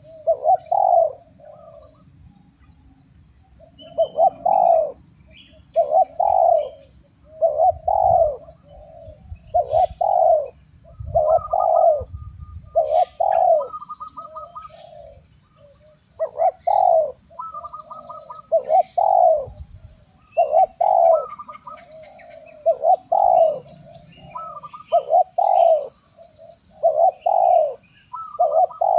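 Spotted dove (tekukur) cooing over and over, one short phrase about every second and a half, with higher short notes between some of the coos. A steady high-pitched insect drone runs underneath.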